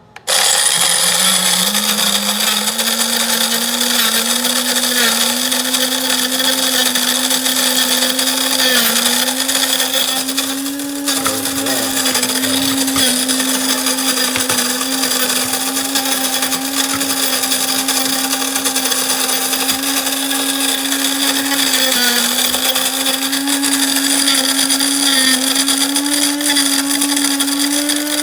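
Mr. Coffee electric coffee grinder running on its French press setting, grinding coffee beans. The motor starts abruptly, rises in pitch over the first second or so as it spins up, then holds a steady whine with the rattle of beans and grounds.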